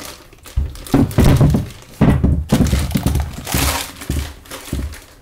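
Heavy metal parts of an MGB front stub axle assembly being handled and set down on a wooden workbench: a run of dull thunks and knocks, the heaviest about one and two seconds in, with a brief crinkle of a plastic parts bag.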